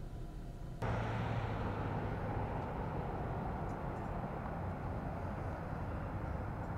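Steady outdoor vehicle noise: a low rumble and hiss that jumps abruptly louder about a second in, then holds steady.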